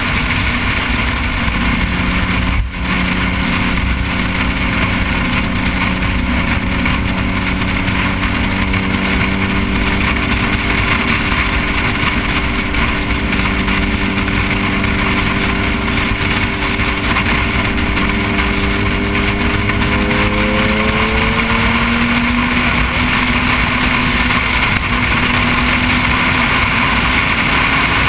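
Noble M400's twin-turbo V6 running at a steady cruise under heavy wind and road noise, its engine note rising slightly about twenty seconds in and then holding.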